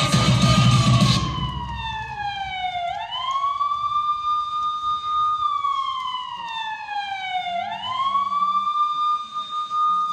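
A dance track cuts off about a second in and a wailing siren sound effect takes over, played as part of the routine's music: it rises quickly, holds, then slides slowly down, twice.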